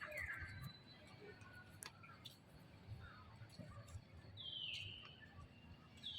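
Faint high-pitched animal calls, each falling in pitch, heard three times: at the start, a longer one about four seconds in, and one at the end, with a few faint clicks between.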